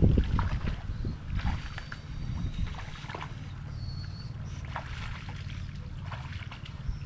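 Shallow water splashing and sloshing, with a louder splash right at the start, then smaller splashes and trickles over a steady low rumble.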